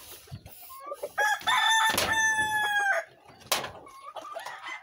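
A gamefowl rooster crowing once, a long call about a second in that holds steady and then drops in pitch at its end, with other chickens calling briefly around it. A single sharp knock follows the crow.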